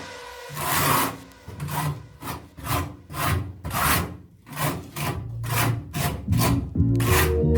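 Rhythmic back-and-forth scraping strokes of a hand tool working material, about two to three strokes a second, coming faster in the second half.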